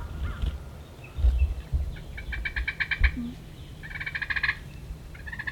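Turkey gobbling: two fast rattling gobbles about two and four seconds in, with a third beginning right at the end. Low thumps are heard underneath.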